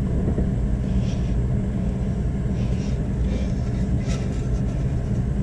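A steady low rumble, with a few faint creaks and ticks as a clamp tool is worked to press a brake caliper's piston back into its bore.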